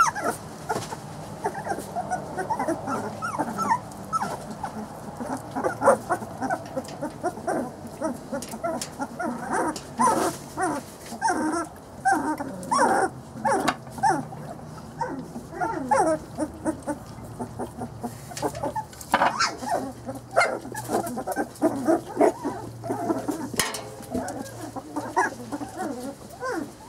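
A litter of three-week-old Brittany puppies whining and squeaking, with many short high calls overlapping one another and a few sharp clicks or knocks among them.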